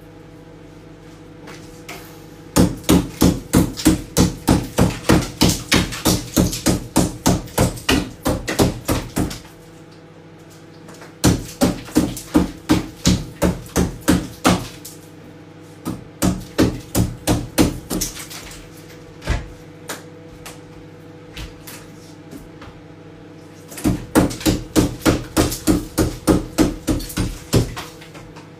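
A hammer chipping at frost and ice built up in a fridge's freezer, in fast runs of blows about three or four a second with pauses between the runs.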